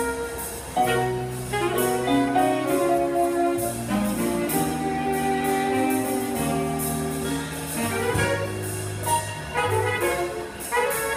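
Jazz big band playing live: a saxophone section and brass (trumpets and trombones) holding chords over piano, upright bass and drums, with a steady beat.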